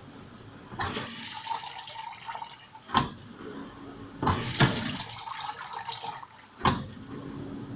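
Fagor LVC-21 dishwasher washing: water sprays and splashes inside the tub in two spells of about two seconds each, over a low hum. Sharp knocks come at the ends of the spells, the loudest near the end.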